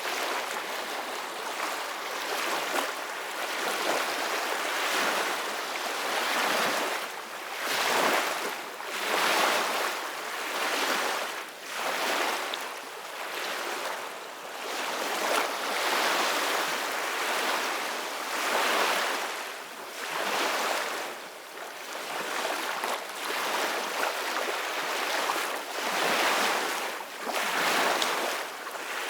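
Soft ocean waves, rising and falling in a new swell every two to three seconds.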